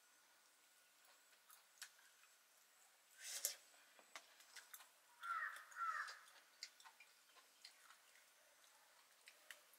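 Near silence with faint scattered clicks, a sharper knock about three and a half seconds in, and two short calls just after five and six seconds in.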